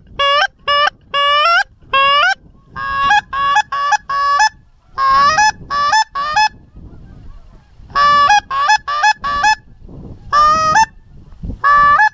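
Goose honks in quick runs of two to five, each honk breaking sharply upward from a lower to a higher note, with short gaps between the runs. The calls are loud and close.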